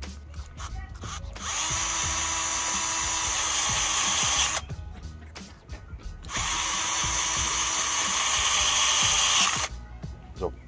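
Cordless drill-driver running twice, each time for about three seconds, driving two screws into a plastic bicycle-basket handlebar mount. There are a few light clicks of handling before the first run.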